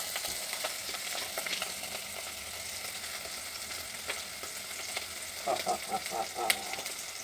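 Mushrooms frying in a pot on a gas stove: a steady sizzling crackle, with a sharp click about six and a half seconds in.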